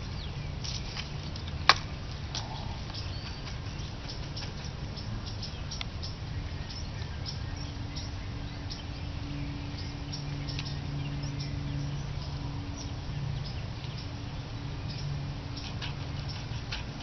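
Open-air background rumble with scattered faint ticks and one sharp click about two seconds in. A faint low hum comes and goes through the middle.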